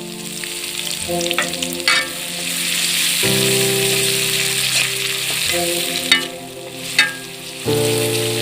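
Chopped onion and whole spices sizzling in hot oil in a pan, stirred, with a few sharp clicks of the spoon against the pan. Background music with sustained chords that change every couple of seconds plays underneath.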